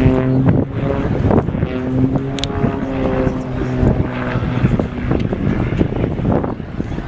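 An engine drones at a steady, unchanging pitch and fades about four and a half seconds in. Wind buffets the microphone throughout, and there is a short high squeak about two seconds in.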